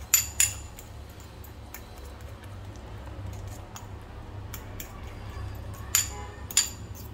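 Metal fork stirring and mashing a banana-and-jaggery paste in a ceramic bowl: soft scraping and ticking, with four sharp, ringing clinks of the fork against the bowl, two just after the start and two about six seconds in. A steady low hum runs underneath.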